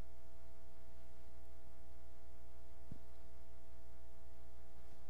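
Steady electrical mains hum with no speech, and a faint click about three seconds in.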